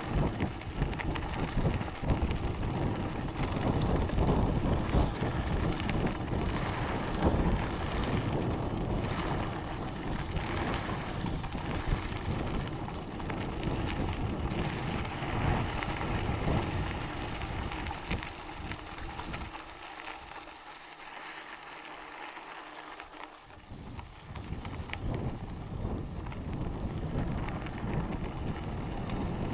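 Wind buffeting the microphone of a rider-mounted camera on a mountain bike moving along a dirt trail, with tyre noise and small rattles and knocks from the bike. The wind rumble eases off for a few seconds about two-thirds of the way through, then comes back.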